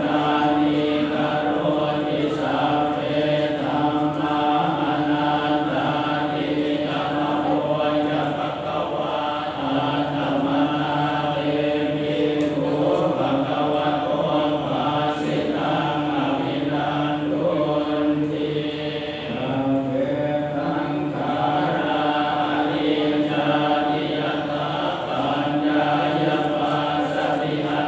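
Buddhist chanting: a voice reciting on long, mostly level held notes that step up and down a little, with brief pauses for breath about a third and two thirds of the way through.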